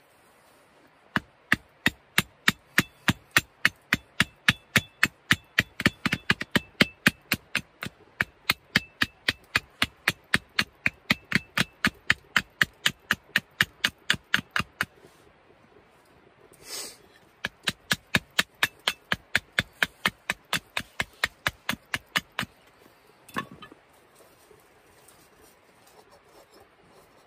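Hatchet chopping a dried pear branch on a wooden stump: quick, even strikes about three a second in a long run, a short pause, then a second run, and one last knock near the end.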